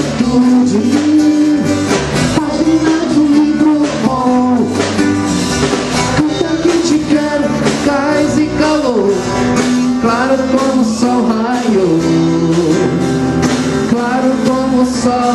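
Live rock band playing: a man singing over electric bass, guitar and drums.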